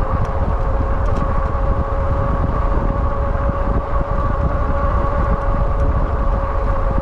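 Wallke H9 AWD e-bike's electric motors whining at a steady pitch while riding, under heavy wind buffeting on the microphone.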